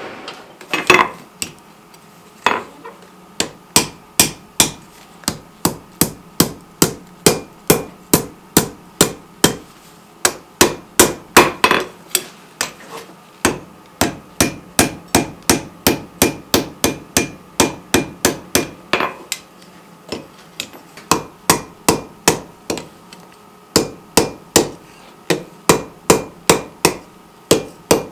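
Rounding hammer striking hot steel bar stock on an anvil in steady hand-forging, about two blows a second, each with a short metallic ring, with a couple of brief pauses.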